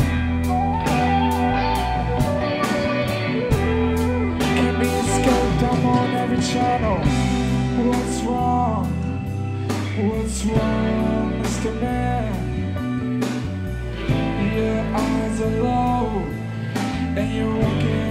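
Live band music: electric guitar, bass and a steady drum beat, with a sung vocal over it.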